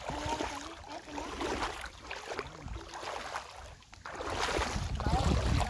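Feet wading through a shallow, rocky river, water splashing and sloshing around the legs, with wind rumbling on the microphone and getting louder about four seconds in.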